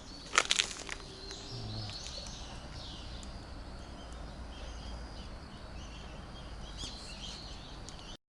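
Small birds chirping over a steady low outdoor rumble, with a few sharp clicks in the first second.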